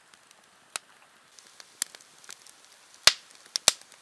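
Wood campfire crackling, with a scattering of sharp pops, the loudest about three seconds in.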